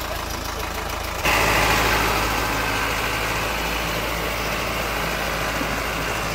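YTO EF804 4x4 tractor's diesel engine running steadily, getting abruptly louder about a second in and then holding level as the tractor works under load in a slip test. The engine holds its revs without dropping.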